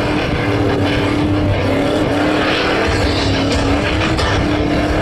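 Holden ute's engine held at high revs as the ute spins doughnuts on dirt, steady and loud with its pitch wavering slightly, over the hiss of the rear tyres spinning in the dirt.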